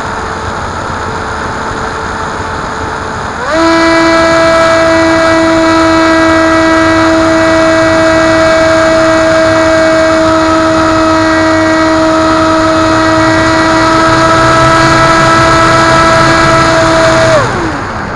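HobbyKing Bixler glider's electric pusher motor and propeller, heard from on board: wind rush with a faint motor tone, then about three and a half seconds in the motor goes to full throttle with a loud, steady whine. Near the end the throttle is cut and the whine falls in pitch and dies away.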